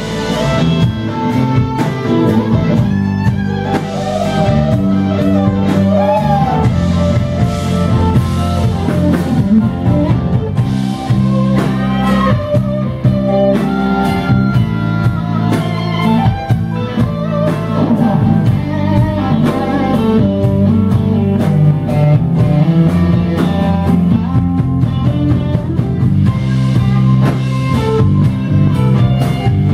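Live rock band playing an instrumental passage: an electric guitar lead with bending notes over sustained keyboard chords, bass and a drum kit.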